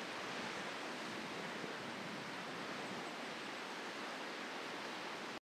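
Steady, even outdoor hiss of open-air ambience by the shore, cutting off suddenly to silence near the end.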